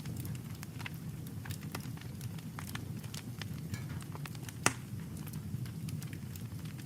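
Wood campfire crackling, with many small sharp pops over a steady low rush of flame. One loud pop comes about two-thirds of the way through.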